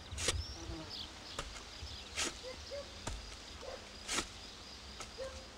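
A shovel scraping and scooping soil at the base of a straw-covered charcoal kiln, four short strokes spaced one to two seconds apart, as the mound is banked with earth. A faint steady high insect whine and a few short bird calls run underneath.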